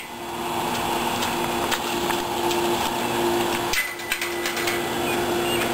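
Steady mechanical hum over a hiss of noise, briefly cut off about four seconds in.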